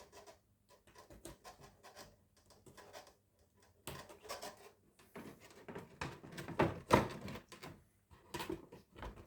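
Taped retail packaging being cut open and handled: an irregular run of short clicks, scrapes and rustles, loudest about seven seconds in.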